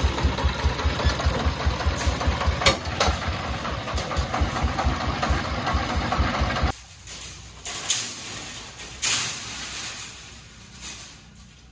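Single-cylinder diesel engine of a three-wheeled công nông farm truck running with an even, rapid beat. It cuts off abruptly about two-thirds of the way through, leaving a quieter background with a few sharp knocks.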